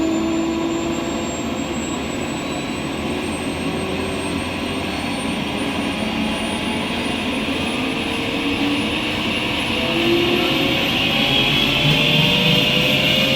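Bell 505 Jet Ranger X's Safran Arrius 2R turboshaft engine spooling up during start: a steady whine that rises slowly in pitch, growing a little louder about ten seconds in.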